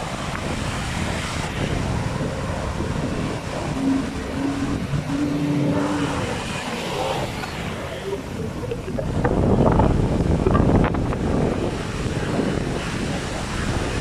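Outboard engines of inflatable racing powerboats running out on the water, mixed with wind noise, growing louder about nine to eleven seconds in.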